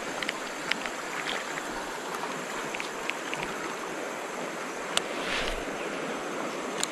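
Steady rushing of a shallow river running over rapids, with faint scattered clicks and one sharper tick about five seconds in.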